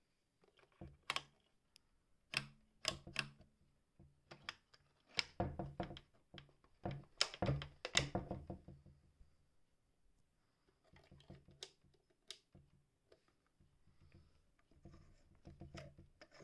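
Irregular clicks and knocks from the controls of a vintage Singer 467 electric sewing machine being handled, not the machine running. The clicks are loudest and most frequent about five to eight seconds in.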